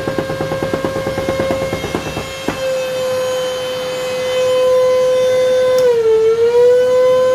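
Metabo ASR 35 ACP dust extractor's motor running with a steady whine, while its filter-cleaning solenoid rattles rapidly, banging the filters to knock the dust off. The rattle stops about two and a half seconds in. Near the end a switch clicks and the motor's pitch dips briefly, then recovers.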